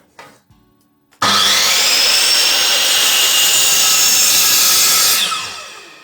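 Ryobi miter saw with a freshly fitted blade switched on about a second in, its motor whining up to speed as the blade cuts through wood. Near the end it is released and the whine falls away as the blade spins down.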